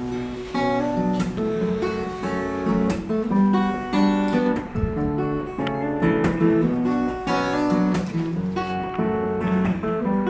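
Steel-string acoustic guitar fingerpicked, playing the instrumental opening of a song as a run of separate ringing notes, with no singing yet.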